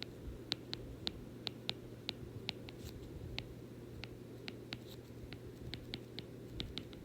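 Light, irregular clicks and taps, a few each second, over a faint steady hum.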